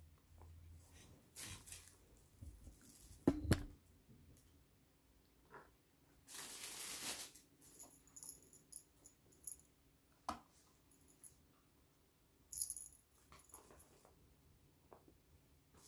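Packaging and toys being handled: scattered light clicks and knocks, a sharper knock a few seconds in, and one longer crinkling rustle of a packet about six to seven seconds in.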